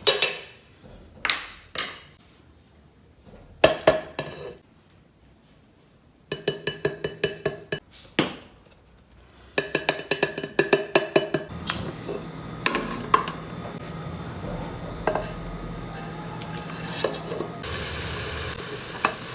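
Kitchen dishes, pots and cutlery clinking and clattering: single ringing knocks, then quick runs of metal and glass strikes. In the second half, a steadier rushing noise continues under occasional clinks and grows brighter near the end.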